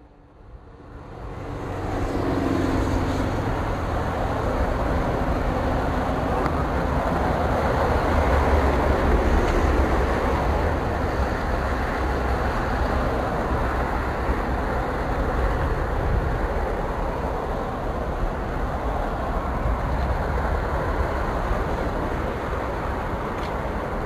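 Steady noise of motorway traffic, tyres and engines blending into one continuous rush over a deep rumble, fading in over the first two seconds.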